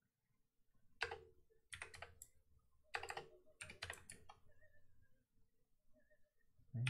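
Keystrokes on a computer keyboard: a few quick clicks about a second in, then short clusters of key presses over the next three seconds or so, fading to faint single taps.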